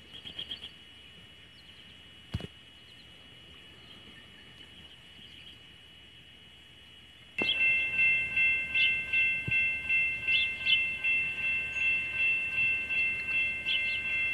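A railroad grade-crossing bell starts ringing abruptly about seven seconds in, a steady pulsing ring of about two strokes a second: the crossing signal activating for an approaching train as the gates come down.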